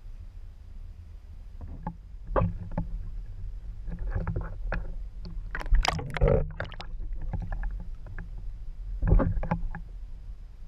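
Kayak paddle strokes splashing and sloshing in the water close by, a few strokes a couple of seconds apart, the loudest about six seconds in, over a steady low rumble.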